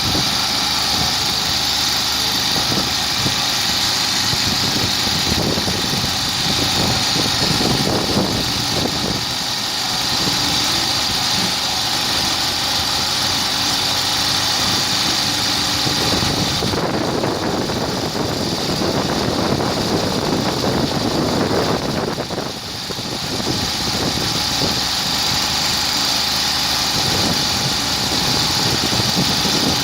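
Core drill motor running steadily with a high whine. About halfway through, the whine drops away for several seconds and a rougher, lower noise takes over before the whine returns.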